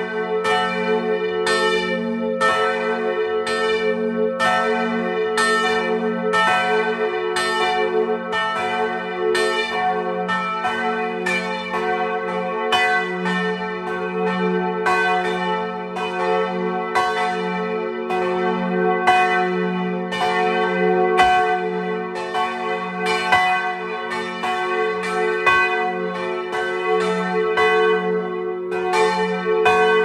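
Several large church bells swinging and ringing together in a full peal, heard close up from inside the belfry. Clapper strikes come about twice a second over a loud, continuous hum of overlapping bell tones.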